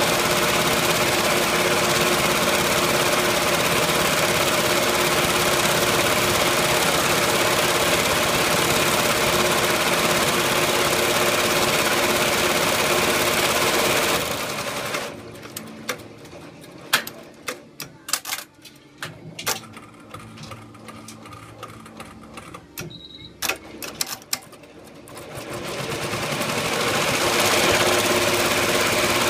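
Multi-needle embroidery machine stitching, running steadily. About halfway through, the running sound drops away for some ten seconds, leaving scattered sharp clicks, then builds back up near the end.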